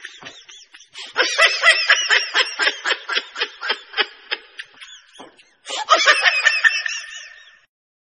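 High-pitched laughter in quick repeated bursts: a long bout starting about a second in, then a second bout near the end that cuts off abruptly.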